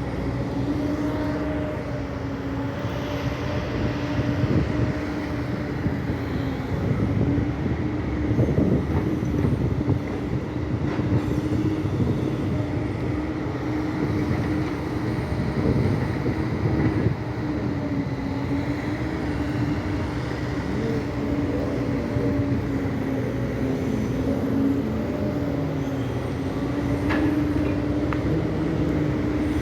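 Excavator's diesel engine running steadily while digging, a droning whine that wavers slightly in pitch over a low rumble.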